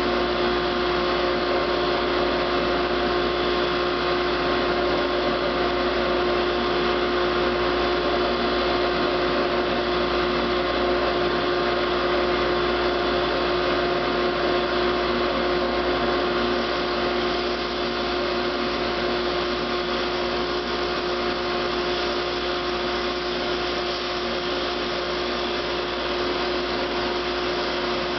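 Woodmaster planer-molder, set up as a drum sander, running steadily together with its dust collector: a constant motor hum with a steady whine. It gets slightly quieter about two-thirds of the way through.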